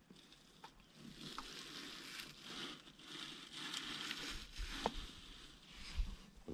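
Crackling rustle of a North American porcupine shuffling and turning in dry debris in a narrow gap, with a few short dull bumps near the end.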